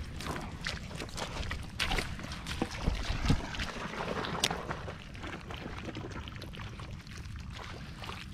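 Hands digging into a water-filled mud crab hole in mangrove mud: irregular splashing, sloshing and squelching of muddy water, sharpest about three seconds in, over a low rumble.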